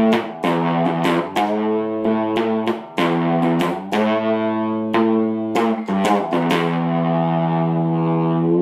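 Homemade one-string electric diddley bow played through an amplifier: a run of quick plucked notes at a few different pitches. Near the end, one note is held and rings for about two seconds.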